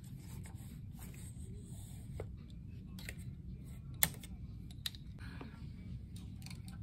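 Faint scattered clicks and taps of plastic and metal parts as a tripod light stand is handled and adjusted, the sharpest click about four seconds in, over a low room hum.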